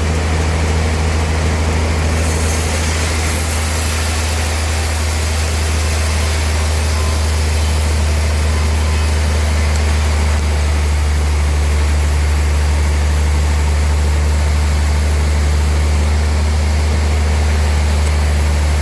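Sawmill machinery running with a steady, loud, low engine drone, with no change in pitch or level.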